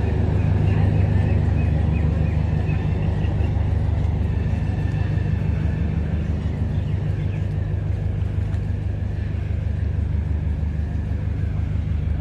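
Diesel engine of a DEMU power car idling while the train stands at the platform: a steady low rumble with a fast even throb, getting slightly fainter in the second half.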